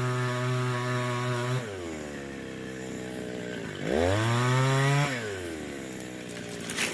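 Old petrol chainsaw's two-stroke engine revved at high throttle, dropping to idle, revved up again about four seconds in and held, then falling back to idle. A short sharp click comes near the end.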